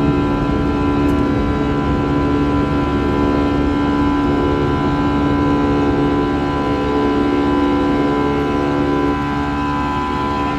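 Cabin sound of an Airbus A320-214's CFM56 turbofan engines at take-off thrust during the initial climb. A loud, steady drone with several held tones over a low rumble, easing slightly about nine seconds in.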